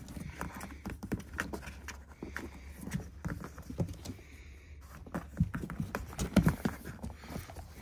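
Kittens playing on and inside a cardboard box: irregular taps, thumps and scratching of paws on the cardboard, with a few louder thumps about six seconds in.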